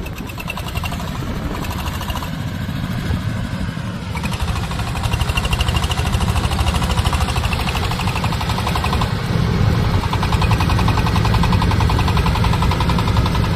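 Engine-driven corn sheller for unhusked cobs running: a steady mechanical rumble with a fast, even rattle, growing louder about four seconds in and again about nine seconds in.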